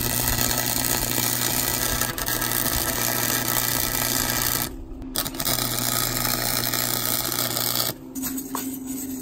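MIG welder arc laying a bead on 1-inch square steel tube: a steady hiss with a low hum that breaks off briefly about halfway through, then a second, shorter bead that stops near the end.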